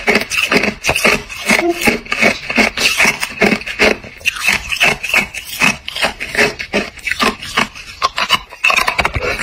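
Hard, clear ice being chewed and crunched between the teeth, close to the microphone, in a quick, continuous run of crisp crunches, several a second.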